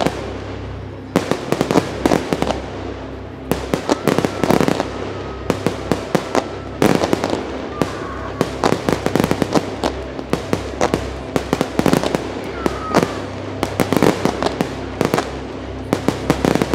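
Aerial fireworks display firing one volley after another: clusters of sharp bangs and reports from shells and comets every second or two, over a steady low rumble.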